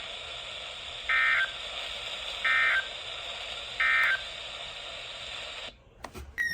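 Three short bursts of Emergency Alert System end-of-message data tones, the two-tone warbling SAME code, with about a second's gap between them, signalling that the alert message is over. Under them is the steady hiss of the weather radio broadcast, which cuts off near the end.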